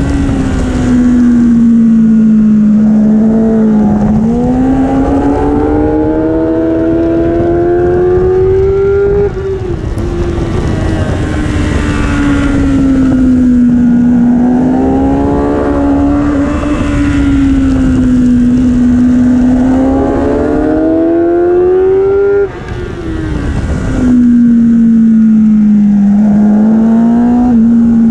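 Kawasaki superbike's engine at racing speed, heard from the bike itself. Its note climbs under acceleration and falls back repeatedly, with sharp drops about 9 and 22 seconds in as the throttle shuts or a gear changes.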